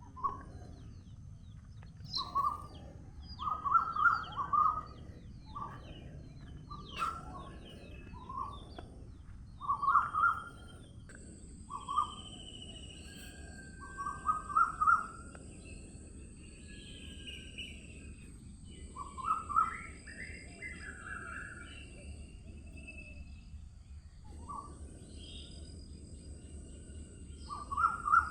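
Wild birds calling: short calls repeated in quick clusters every second or two, with a few higher, thinner calls among them, over a low steady background hum. A thin, steady high-pitched tone joins about a third of the way in.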